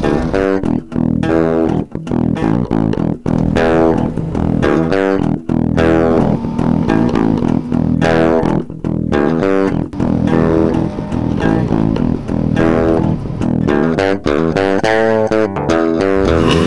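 Instrumental background music with guitar and bass guitar.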